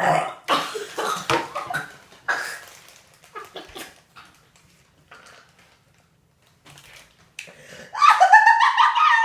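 A woman burping after drinking Sprite: loud, rough bursts in the first two seconds, then a long, loud pitched burp near the end.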